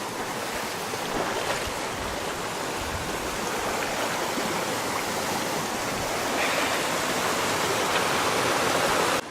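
Creek water running over rocks: a steady rushing that grows a little louder toward the end, then cuts off suddenly.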